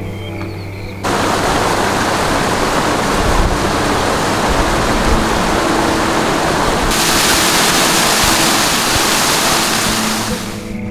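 Loud, steady rush of running water, a waterfall or snowmelt creek, over quiet background music. It cuts in about a second in, turns brighter and hissier about seven seconds in, and fades out just before the end.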